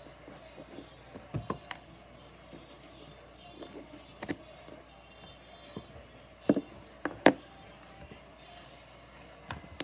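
A few light taps and clacks of small hard toy pieces being handled, the loudest pair a little past the middle, over faint background music.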